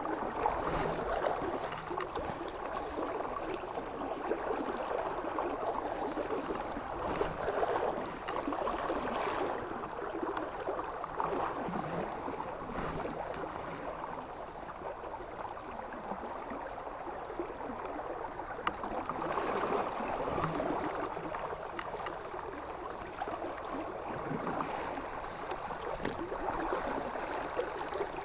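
Fast river current rushing steadily, the river running high with extra water, with a few faint ticks over it.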